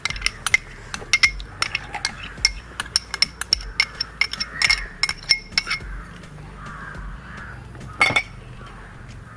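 Spoon clinking and scraping against a metal bowl in a quick run of short taps as ginger-garlic paste is added, with a crow cawing once about eight seconds in.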